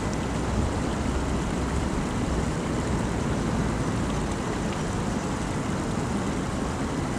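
Steady city traffic noise: an even low rumble with no distinct events standing out.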